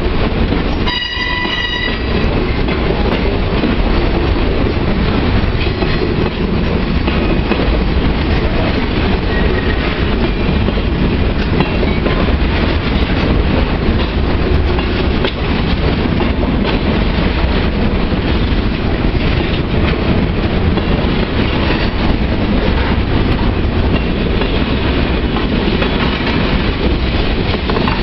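Loaded freight train boxcars rolling past close by, a steady loud rumble of steel wheels on rail with wheels clicking over rail joints. A brief high tone sounds about a second in.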